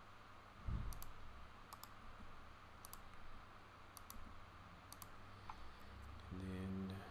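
Computer mouse and keyboard clicks, about one a second, over faint room noise. There is a low thump about a second in and a short low hum near the end.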